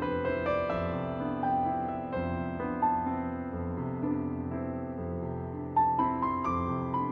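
Background music on piano: a slow melody of held notes, with a few notes struck together near the end.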